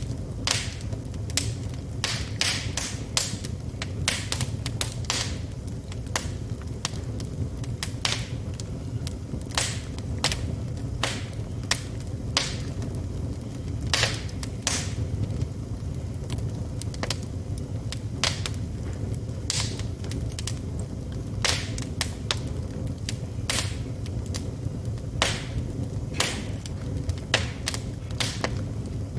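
Wood fire crackling and popping steadily in a fireplace: many sharp irregular pops, several a second, over a low rumble of the burning fire.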